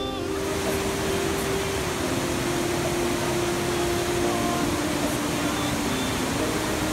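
Steady rushing roar of the Cold Creek (Studený potok) mountain waterfalls, white water pouring over granite cascades.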